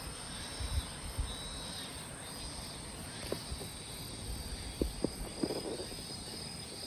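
Insects chirring in a steady, high-pitched drone, with a few faint knocks and clicks of handling.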